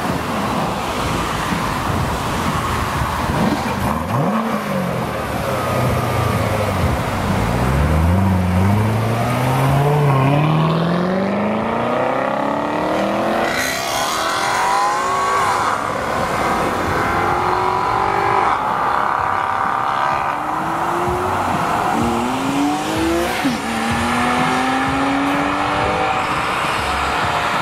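Chevrolet Corvette C7's V8 accelerating hard away through the gears, its note climbing steadily and dropping back at each upshift. Further on, a few shorter rising pulls of engines accelerating.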